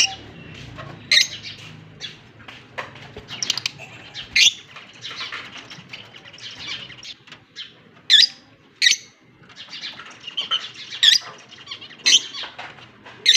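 Fischer's lovebirds chattering: continuous high twittering broken by sharp, loud shrieks every second or few seconds, about eight in all.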